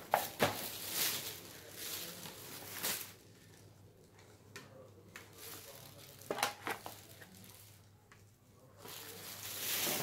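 Plastic shopping bags and candy packaging rustling and crinkling as they are handled, in bouts, with a few sharp crackles a little past the middle.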